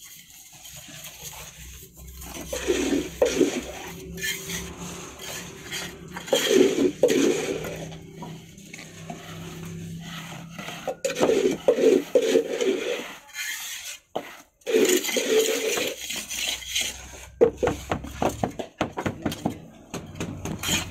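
A trowel and a flat wooden strip scraping, scooping and spreading damp cement mix across a wooden mould board, in irregular gritty scrapes with sharp knocks in between.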